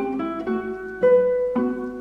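Guitar music: single notes plucked one after another and left to ring, with a stronger, higher note about a second in.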